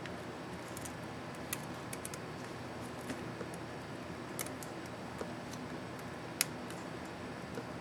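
Scattered small plastic clicks and ticks as a laptop keycap and its scissor-clip retainer are handled and fitted. The loudest click comes about six and a half seconds in, over a steady background hum.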